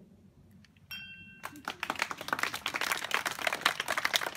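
A glass clinks and rings briefly about a second in. Then an audience starts clapping, the applause quickly growing dense and loud.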